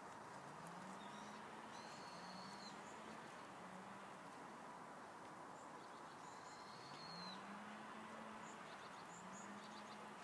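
Faint outdoor hush with birds calling: a few short high whistled calls about 2 and 6 seconds in. A low tone that rises and then holds recurs every few seconds.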